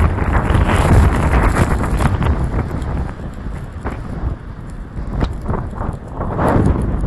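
Strong wind howling and buffeting across the microphone in gusts: loud at first, easing after about three seconds, then a fresh gust near the end.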